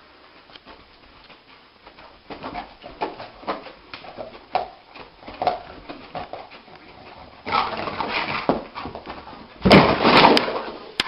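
A dog whimpering in its sleep: a run of short, high-pitched whimpers and muffled yips, irregular, a few a second. Near the end come two louder, noisier bursts.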